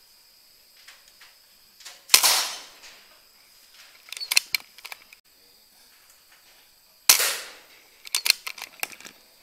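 Two shots from a PCP air rifle, about five seconds apart, each a sharp crack with a short decaying tail. About two seconds after each shot comes a quick run of sharp clicks.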